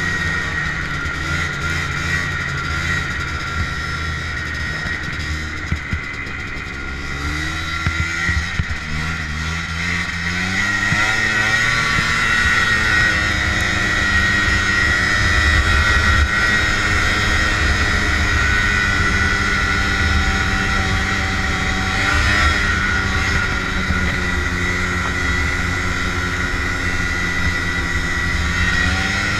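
Snowmobile engine running under way on the trail. The revs climb about eight seconds in and then hold high and steady, with a steady high whine over the engine note.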